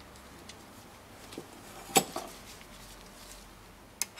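Metal clinks as the shift-linkage bolt and its Allen screw are fitted at the selector lever of a Mercedes 722.3 automatic transmission: a few faint taps, one sharp click about two seconds in and another near the end.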